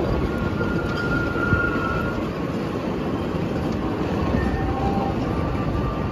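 Loaded sugarcane bins of a narrow-gauge cane train rolling past close by: a steady rumble of wheels on rail, with faint, brief wheel squeals now and then.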